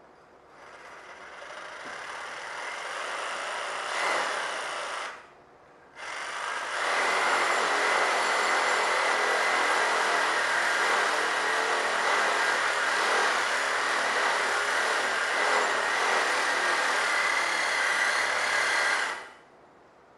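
A handheld power tool working metal in two runs: a first run that builds up over about four seconds and stops, then after a second's pause a steady, continuous run of about twelve seconds that dies away near the end.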